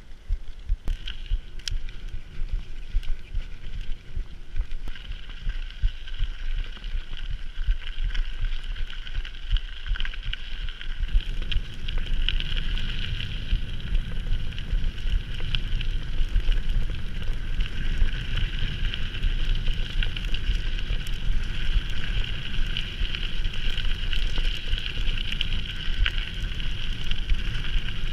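Mountain bike on the move, its tyres giving a steady hum, with wind buffeting the camera's microphone. The wind rumble grows much stronger about eleven seconds in.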